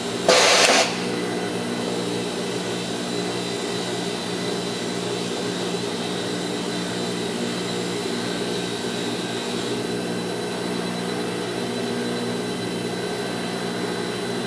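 A short burst of compressed-air hiss about half a second in, as the pneumatic gripper of the Fanuc robot releases the puzzle piece. Then a steady machine hum with several constant tones from the running robot workcell.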